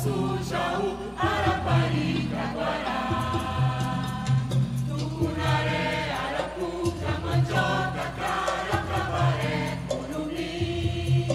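Choir singing with instrumental accompaniment, a bass line stepping beneath the voices.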